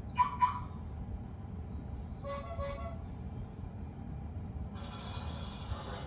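Tesla Model 3 Highland Boombox lock-sound presets being tried one after another: a quick double chirp near the start, a two-pulse horn-like toot about two seconds in, then a longer hissing sound lasting about a second near the end.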